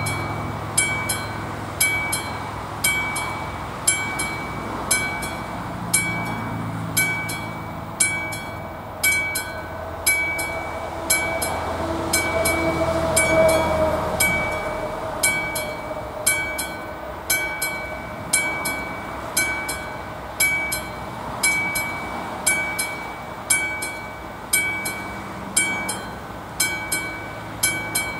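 Level-crossing warning signal's classic bell struck about once a second, each stroke ringing on briefly. A train runs past across the crossing, loudest around the middle with a drawn-out whine that dips slightly in pitch, and its noise has died away just after halfway while the bell keeps ringing.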